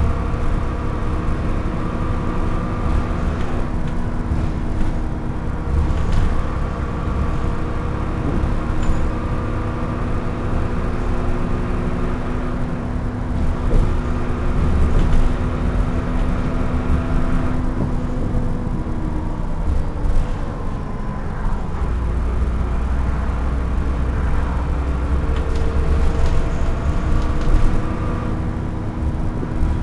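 Double-decker bus running on the road, heard from inside on the upper deck: a steady engine drone and low rumble whose note shifts and falls about two-thirds of the way through, with scattered clicks and knocks from the bodywork.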